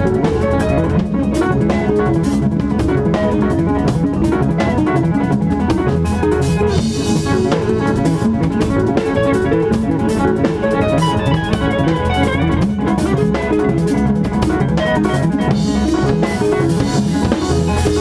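Instrumental rock band playing: electric guitars and a drum kit together, loud and continuous with steady drumming.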